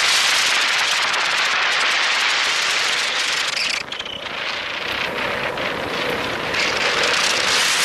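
Wind rushing over the microphone with the roll of longboard wheels on asphalt at high downhill speed, a steady loud hiss that dips briefly about four seconds in.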